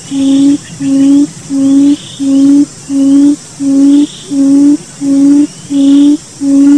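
Barred buttonquail giving its low hooting call: a steady run of even, booming 'hoon' notes, about one and a half a second. Faint higher chirps sound behind it.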